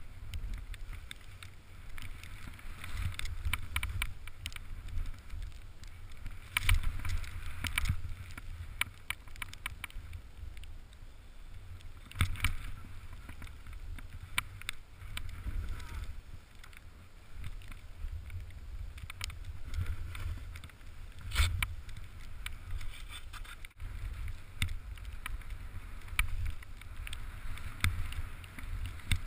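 Wind buffeting the microphone of a body-worn camera as the rider descends through deep powder snow. A steady low rumble, with a hiss of sliding and sprayed snow that swells in several louder bursts every few seconds.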